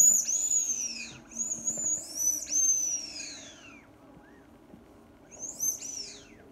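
A large rubber duck squeaked by hand several times, each squeak a high whistle that falls in pitch as the air runs out. There are about four in quick succession, then a pause, then one more near the end.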